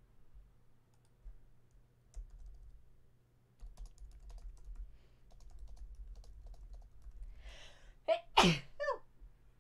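Scattered keyboard clicks like typing, then a quick in-breath and a loud sneeze near the end.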